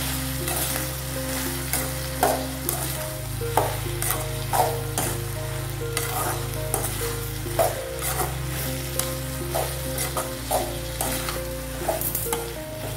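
Metal ladle stirring and scraping chopped tomatoes and onions frying in an aluminium kadai. Under a steady sizzle there are irregular scrapes against the pan, about one a second.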